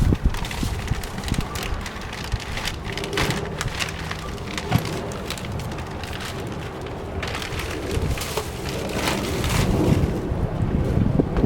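Packaging being handled and unpacked: irregular rustling and crackling with many small clicks and knocks.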